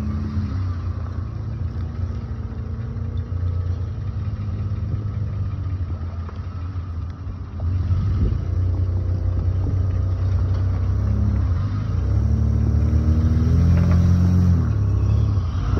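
Toyota Land Cruiser 80 Series engine running with a low, steady rumble, getting louder about seven and a half seconds in.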